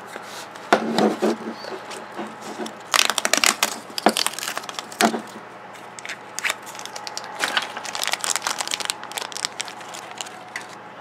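Plastic toy packaging being handled and peeled open: a clear plastic tube and its printed sleeve crinkling and crackling in irregular bursts, then a red plastic wrapper rustling near the end.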